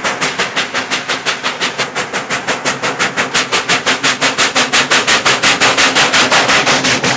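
Steam locomotive working hard: sharp exhaust chuffs about six a second, louder as it draws near and passes below, loudest shortly before the end.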